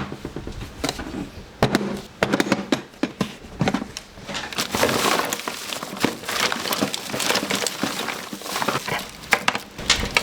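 Irregular sharp cracks, clicks and knocks of a small hard object being forced and broken apart by hand, denser about halfway through.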